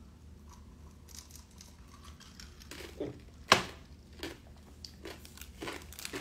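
Eating at a table: scattered light clicks and crinkles of chopsticks on a plastic takeout tray, with one sharp, louder click about three and a half seconds in.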